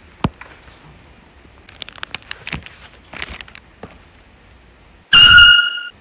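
A handheld canned air horn blasts once near the end, a very loud, high, steady blare lasting under a second before it cuts off. A few light knocks and rustles come before it.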